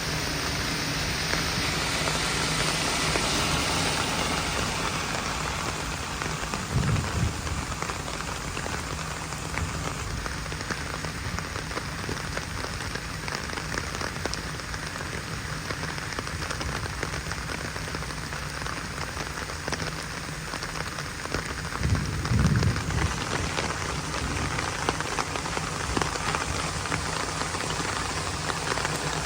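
Heavy rain falling steadily, with two brief low rumbles, about seven seconds in and again near the twenty-second mark.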